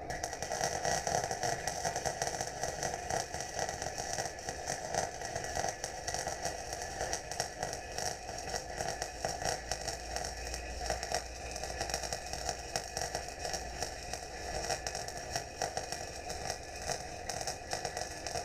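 Electric welding arc on steel, crackling steadily with a dense run of small sharp pops.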